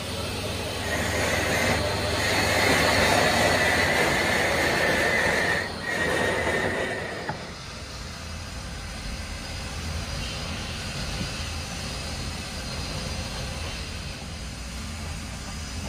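Workshop machinery: a loud grinding screech with a steady high squeal for about the first seven seconds, which then cuts down to a quieter, steady machine hum.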